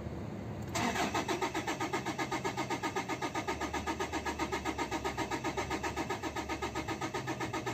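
Starter motor cranking a 2013 Toyota Hilux's 3.0-litre 1KD-FTV diesel, heard from inside the cab. It starts about a second in as an even, rapid chug of roughly five to six compression beats a second and never catches. This is a no-start with no pressure building in the fuel rail.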